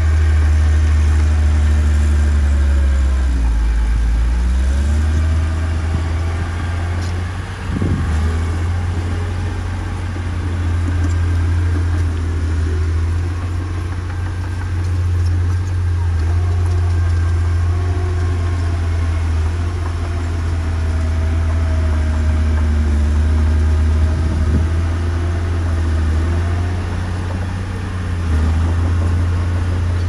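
Diesel engine of heavy earthmoving machinery running, its pitch rising and falling as the revs change. Two brief knocks, about a quarter of the way in and again near the end.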